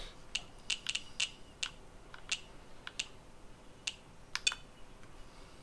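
Buttons on an ISDT smart charger clicking about a dozen times at an uneven pace as its settings menu is stepped through to set up a charge.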